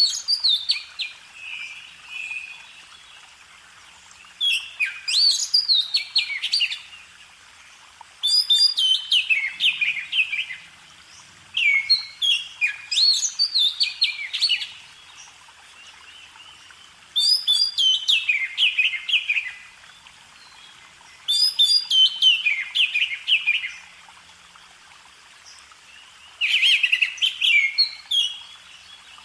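A songbird singing. It repeats song phrases of quick, descending notes, each two to three seconds long, with short pauses between them.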